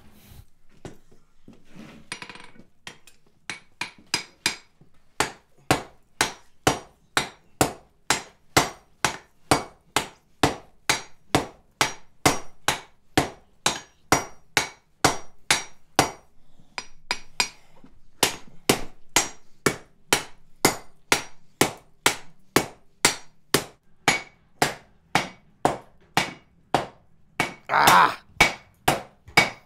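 Sledgehammer blows on hot iron on an anvil, forging a blacksmith's holdfast: a steady run of sharp strikes about two a second, with a short pause about halfway through before the striking resumes.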